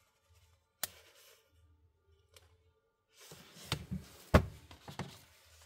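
Small clicks and knocks of phone parts and tools being handled on a workbench. There is one sharp click about a second in, then a flurry of knocks in the second half, the loudest about four seconds in.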